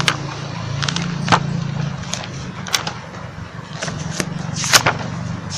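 Paper pages of a Quran being turned: a few short rustles and flicks, the loudest near the end, over a steady low hum.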